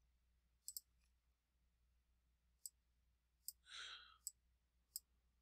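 Faint, scattered clicks of a stylus on a pen tablet during handwriting: about six sharp ticks at uneven gaps, two close together early, with a short soft hiss just before 4 s.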